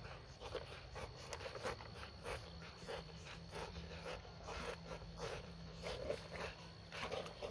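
Swimming dogs breathing hard in short, irregular puffs, a few times a second.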